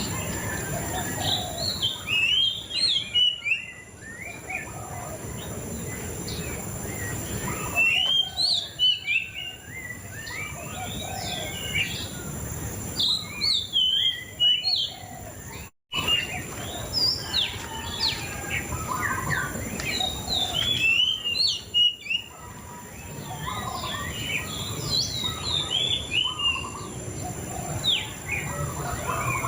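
Murai cacing songbird singing in bouts of rapid, varied chirps and whistles that sweep up and down in pitch, each burst lasting a couple of seconds with short pauses between, over a steady low background noise. The sound cuts out for an instant about halfway through.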